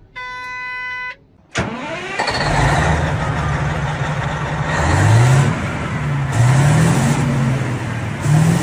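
A one-second steady tone, then a heavy engine catching suddenly and running with a low hum, revving up in rising sweeps several times.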